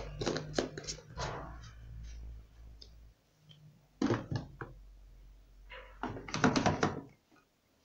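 Plastic detergent bottles and packages being handled and set down on a cloth-covered surface: a quick run of light clicks and knocks, then two clusters of knocks and plastic rustling. A low hum underneath stops about three seconds in.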